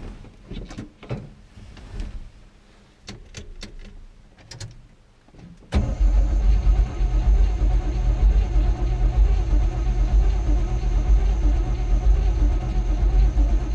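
A few clicks and knocks, then about six seconds in the Chevy 305 small-block V8 of a squarebody pickup suddenly fires and keeps running steadily, a start after several months of sitting.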